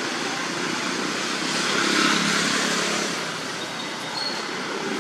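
Steady rushing noise of a passing motor vehicle, swelling about two seconds in and easing off, with a brief faint high chirp near the end.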